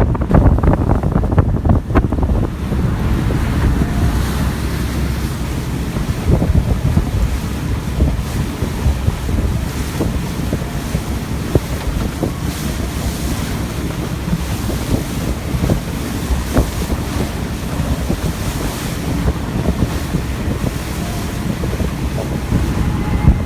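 Small fishing boat running at speed: a steady low rumble of engine and rushing water, with heavy wind buffeting the microphone and frequent short knocks.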